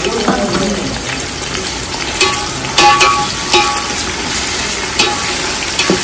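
Sliced onions sizzling as they fry in hot oil in a large metal pot. A perforated metal skimmer stirs them and clanks against the pot several times from about two seconds in, each knock ringing briefly.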